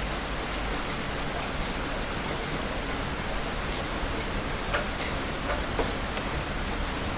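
Heavy rain falling as a steady hiss, with scattered sharper drops hitting a surface, the clearest about halfway through and near the end.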